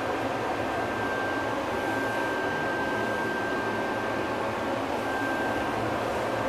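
Škoda ForCity Smart Artic tram running along its track, heard from inside the driver's cab: a steady rumble and hiss with a thin, high, steady whine. The whine holds for the first few seconds, drops out, and comes back briefly near the end.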